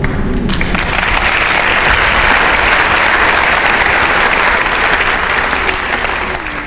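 Audience applauding, rising about half a second in and dying away near the end.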